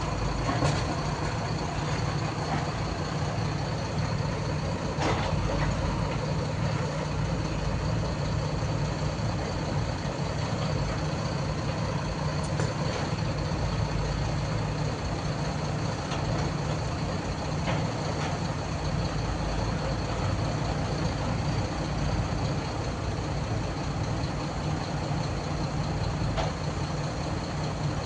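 Excavator's diesel engine running steadily, with a few faint clicks and knocks over it.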